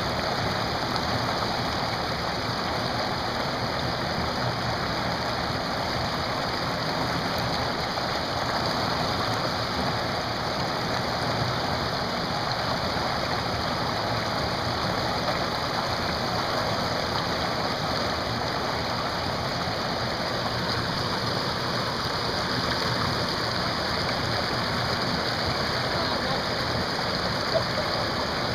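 Steady rush of whitewater rapids in a man-made whitewater course, the river running at about 630 cfs and churning through standing waves and foam.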